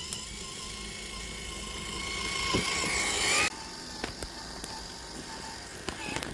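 Electric drive motor and gears of an Axial SCX10 III RC crawler whining, rising slightly in pitch and loudness, then cutting off suddenly about three and a half seconds in. A few light clicks and knocks follow.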